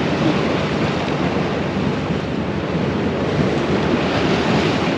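Sea surf washing on a rocky shore, with wind buffeting the microphone: a steady rushing noise.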